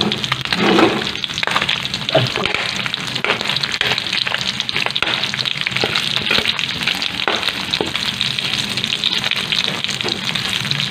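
Ginger strips and meat sizzling in hot oil in a metal wok, a steady crackling hiss dotted with clicks and scrapes of a metal spatula stirring against the wok.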